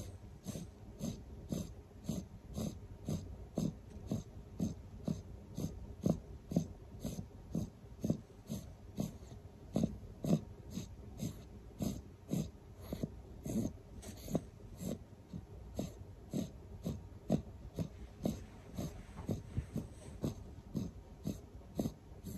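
Sleeping puppy breathing fast and noisily through its nose, in short snuffling breaths at an even rhythm of a few a second.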